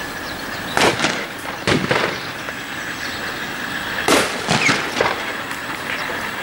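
Distant Boeing 777 jet engines at takeoff power, a steady roar with a faint whine, broken by sharp bangs in two groups: three from about a second in, and three more around four to five seconds in.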